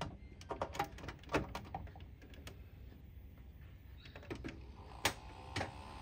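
Scattered light clicks and knocks, then a few louder clicks near the end as the Dell desktop powers on and its CPU cooler fan starts up with a faint whine that rises slightly in pitch. No POST beeps.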